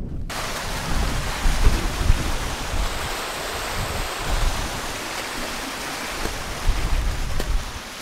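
Small mountain stream running over rocks, a steady hiss of rushing water, with gusting wind buffeting the microphone as a low rumble.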